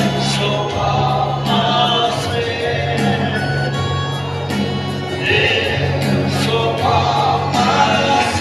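A group of voices singing a slow gospel hymn over held low instrumental notes that change about every two seconds.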